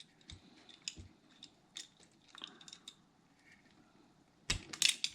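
Wire strip tool working about a quarter inch of insulation off the end of a small wire: scattered faint clicks and snips, then a louder cluster of clicks near the end.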